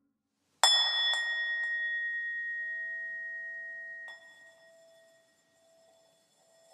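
A bell-like tone struck once about half a second in, ringing with a slow, slightly wavering decay. A softer second strike about four seconds in cuts it down to a quieter ring that carries on.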